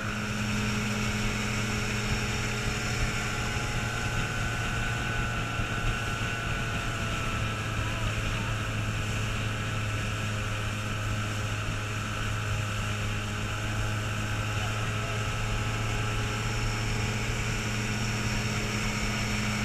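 Antique outboard motors running steadily at cruising speed, a constant low drone with no change in pitch, with water rushing and splashing along the hull.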